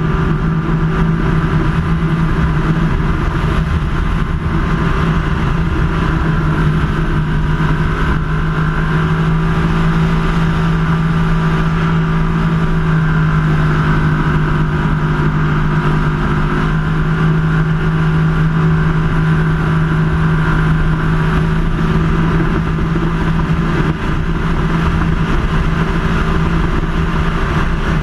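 Superclass ski race boat's engine running hard at racing speed, heard from on board: a loud, steady low engine note over the rush of wind and water.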